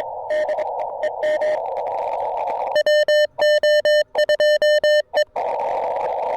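Morse code (CW) on an amateur radio transceiver: band hiss through a narrow CW filter with a faint station's keyed tone, then about three seconds in a loud, clean morse tone keyed in dots and dashes from an electronic keyer sending. The sending stops a couple of seconds later, leaving the hiss.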